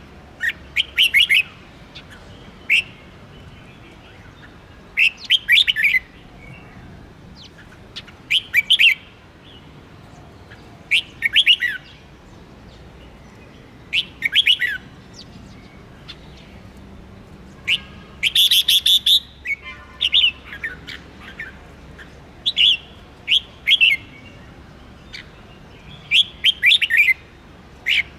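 Red-whiskered bulbul singing: short phrases of quick, sharp notes every two to three seconds, with a longer, louder phrase about eighteen seconds in.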